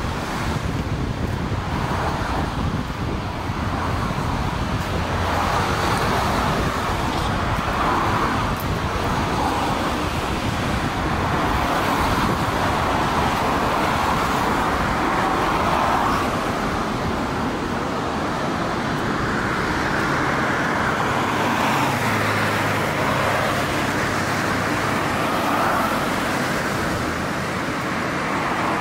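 Road traffic: a steady run of cars passing, their tyre noise swelling and fading every few seconds.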